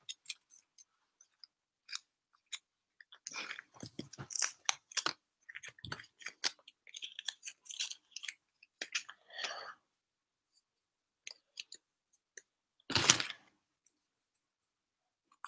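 A trading card packet's wrapper being torn open and crinkled by hand: scattered crackles and clicks, busiest in the middle, with one louder burst a couple of seconds before the end.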